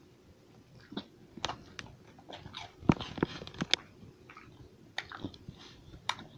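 A dog chewing and crunching cheese balls: an irregular run of sharp crunches, thickest and loudest about three seconds in.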